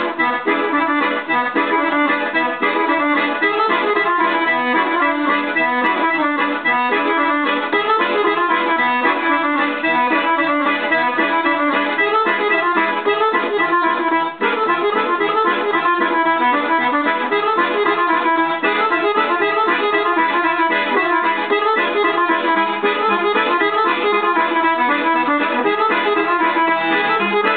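Chromatic button accordion, a Dallapè, played solo: a kolo dance tune with a continuous run of quick melody notes over a steady, regular bass rhythm.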